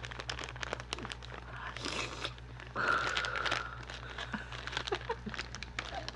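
Crunching of crisp snack chips (Nova multigrain chips) being bitten and chewed, mixed with the crinkling of their foil snack bags, close to the microphone. Many sharp crackles run throughout, with a louder, denser stretch about three seconds in.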